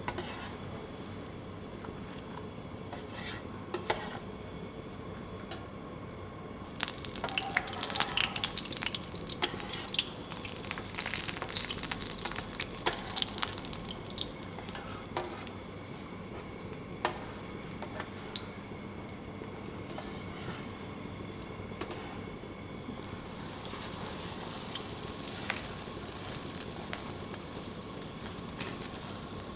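Food sizzling and crackling as it cooks, in two spells, the first about a quarter of the way in and the second near the end. Scattered clicks and clinks of utensils come over a steady background hum.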